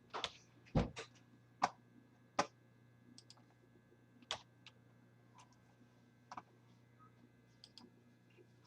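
Irregular clicks and taps from a computer keyboard and mouse: several sharp ones in the first two and a half seconds, another near four seconds, then fainter scattered clicks.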